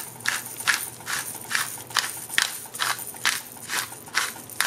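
Pepper mill grinding black pepper: a steady run of short, crisp grinding strokes, about two and a half a second, one per twist of the mill.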